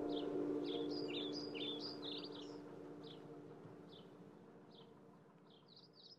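Birds chirping in short high notes, spaced at first, with a quick flurry about a second in and another near the end. Under them a low, steady ringing tone slowly fades out.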